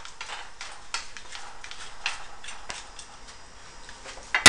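Vegetables cooking in a frying pan and being stirred with a spatula: light, irregular ticks and crackles, with one sharp knock near the end.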